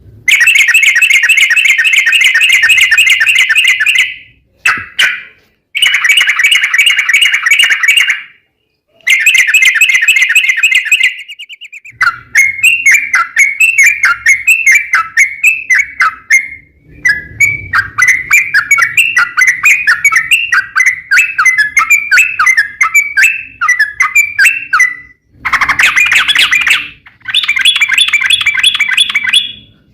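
Yellow-vented bulbul (trucukan) singing a long, rapid song: loud blocks of fast repeated notes a few seconds each, broken by short pauses. In the middle comes a longer stretch of varied, choppy warbling phrases.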